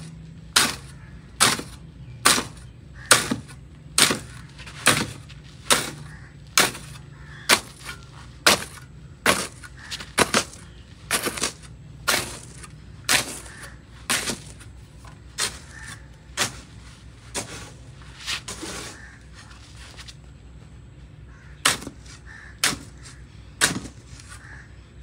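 A shovel blade scraping and striking a concrete floor as it turns over a heap of leftover cement-and-sand mortar mix that has partly set into lumps, about one stroke a second. The strokes stop for about two seconds near the end, then start again.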